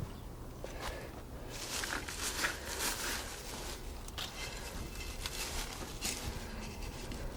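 Short, dry rustles and crackles of freshly pulled garlic plants and dry soil being handled, scattered irregularly.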